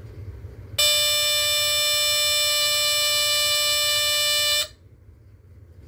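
Vulcan PVR Mark 2 smoke alarm sounding on its test lever: one steady, high-pitched classic squeal lasting about four seconds, starting and stopping abruptly. Its sounder is thought to be a Kobishi CLB 27.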